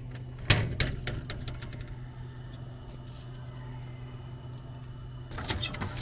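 A drink can clacks against a vending machine's pickup slot about half a second in, followed by a few light clicks. A steady low hum runs underneath, and from about five seconds in a plastic bottle rattles and knocks as it is handled in the slot.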